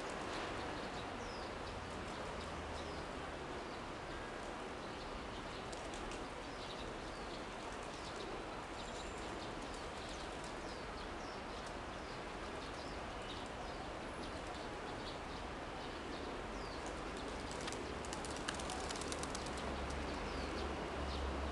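A large flock of feral pigeons feeding on paving, with wing flaps and bird calls over a steady outdoor background noise. A run of quick clicks comes near the end.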